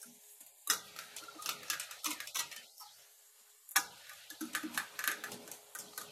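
Metal utensil scraping and clinking against a steel cooking pot while working a thick mixture, in two spells of quick strokes with a pause of about a second in the middle.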